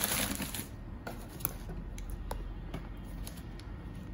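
Packing wrap crinkling as it is pulled out of a cardboard shoebox, loudest in the first second. Then scattered light clicks and rustles as a football boot is lifted out and handled.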